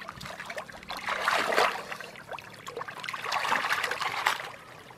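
Hands sloshing and splashing through shallow muddy water while groping for fish, in a few short bouts.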